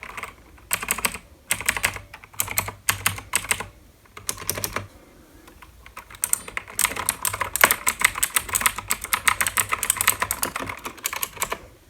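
Typing on an Alpha Gaming Viper mechanical keyboard with blue switches, each keystroke a sharp click: short flurries of keys at first, then a faster, unbroken run of typing from about halfway through that stops shortly before the end.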